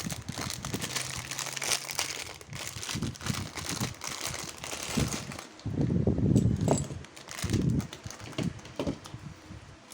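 Thin plastic packaging bag crinkling and crackling as it is torn open and handled, with a louder burst of crumpling about six seconds in.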